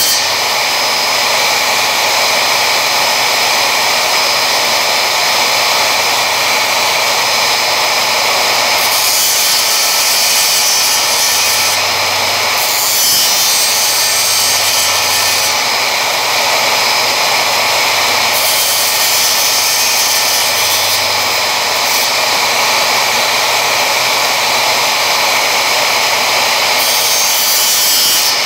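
Circular saw mounted upside down as a makeshift table saw, running steadily while small pieces of hardwood are fed through the blade. Its sound shifts every few seconds as each cut loads and unloads the blade.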